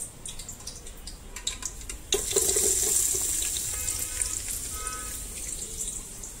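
Hot oil in an electric rice cooker pot sizzling, breaking out suddenly and loudly about two seconds in and slowly dying down, after a few light clicks of handling.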